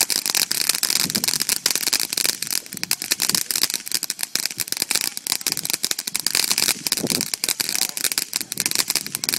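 Ground firework spraying sparks with rapid, continuous crackling pops.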